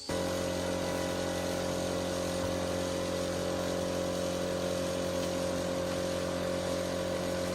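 A small engine running steadily at one constant speed, with an even hum and no revving.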